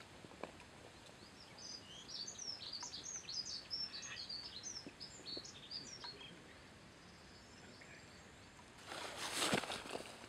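Small songbird twittering: a quick run of many short high chirps lasting about five seconds, starting a second or so in, over a faint steady outdoor hiss. Near the end, a brief loud whoosh.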